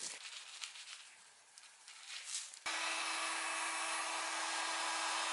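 A cloth rubbing and wiping over a bare steel axe head in short strokes. About two and a half seconds in, a loud steady rushing hiss with a low hum starts suddenly and holds.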